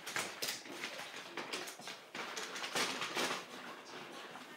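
Irregular rustling and clicking handling noises, many short strokes with denser clusters about half a second in, around a second and a half, and around three seconds.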